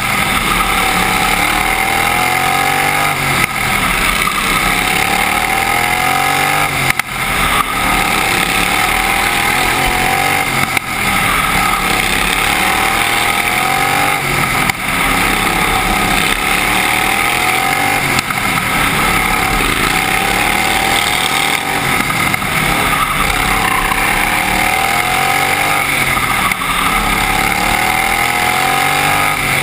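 Outlaw-class racing lawn mower engine at race pace. Its pitch climbs as it accelerates down each straight and drops as the driver lifts for each turn, over and over every three to four seconds.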